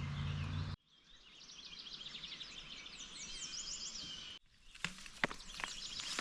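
Small birds chirping in quick repeated runs over outdoor background noise. The sound cuts out abruptly twice, and a few sharp knocks or clicks come near the end.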